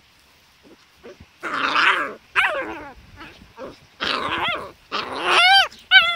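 Young dachshund growling and yipping in short bursts while rolling on her back in the grass, starting about a second and a half in. The last few calls are high yelps that rise and fall in pitch.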